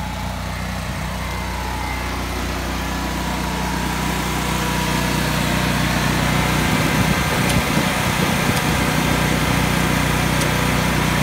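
Engine of a Miller Bobcat 250 welder/generator running steadily while supplying AC welding current, getting gradually louder.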